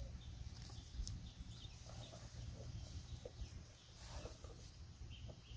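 Quiet outdoor background with a few faint, scattered bird calls.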